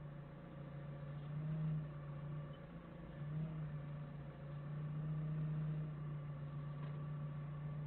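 Doosan 4.5-ton forklift engine running steadily at low revs, heard faintly through the cab's dashcam, with a few slight rises in level as the forklift creeps forward.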